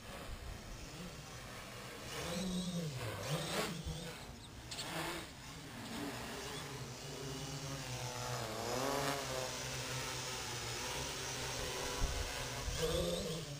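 Small quadcopter's electric motors and propellers buzzing in flight, the pitch swooping down and back up as the throttle changes, twice. It grows louder toward the end as the quadcopter comes close.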